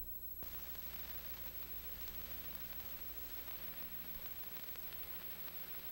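Steady hiss with a low hum under it, the background noise of an old VHS videotape transfer with no programme sound on it; one faint click about four seconds in.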